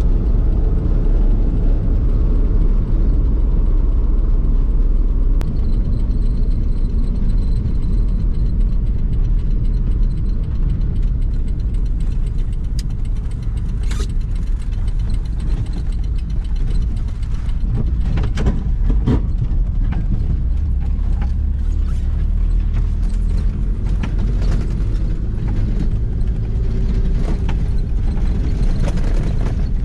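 UAZ Bukhanka van running at road speed, heard from inside the cab: a steady low engine and road drone, with occasional sharp knocks and rattles that come more often in the second half.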